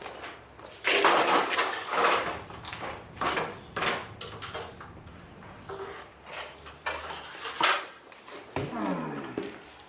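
Metal hardware clinking and clattering, with scattered knocks and sharp clicks, as parts and tools are handled during garage door opener work. A short falling tone comes near the end.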